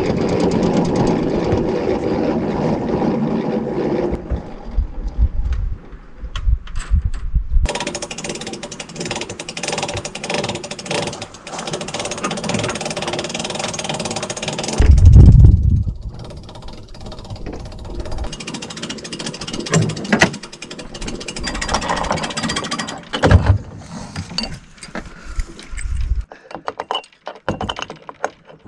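Rattling and clanking of rigging and a hand winch while a trimaran's mast is being raised, with many small clicks and knocks and a loud low rumble about halfway through.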